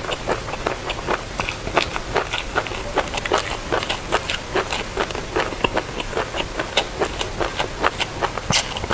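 Close-miked mouth sounds of eating passion fruit: wet chewing and crunching of the seeded pulp, with irregular sharp clicks and crackles several times a second.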